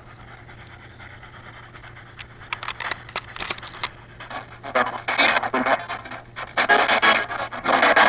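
Spirit box sweeping through radio frequencies: choppy bursts of static and broken radio fragments, starting a couple of seconds in and getting louder and denser about halfway through.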